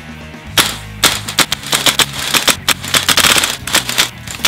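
VFC gas blowback airsoft rifle firing a rapid, uneven string of green-gas shots, each a sharp crack of the bolt cycling, starting about half a second in, over background music.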